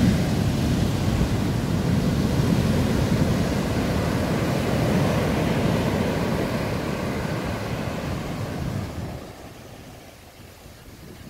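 Ocean surf: large waves breaking close to shore and washing up a sand beach, a steady loud rush that fades away about nine seconds in.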